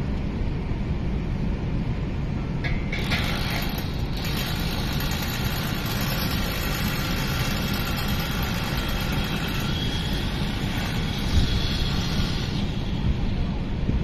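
Wind buffeting the microphone, a constant low rumble. From about three seconds in until near the end, a steady machine whir rides over it, then fades away.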